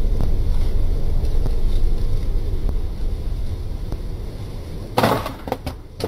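A dust-clogged Acura MDX panel engine air filter is knocked hard against a dead log to shake the trail dust out of it: one sharp knock about five seconds in, then a few lighter knocks. Before the knocks there is a steady low rumble that slowly fades.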